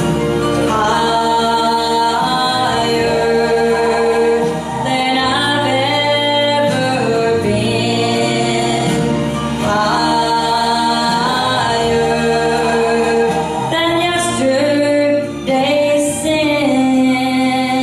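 A woman singing a gospel song into a handheld microphone, holding long notes.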